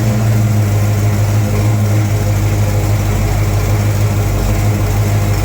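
Freshly rebuilt Pontiac 400 V8 in a 1970 GTO running steadily at an even speed, with a low, unchanging note.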